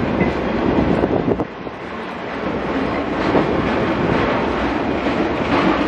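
SEPTA rail train's rail-carrying flatcars rolling past close by on steel wheels, a continuous loud rumble and rattle that dips briefly about a second and a half in.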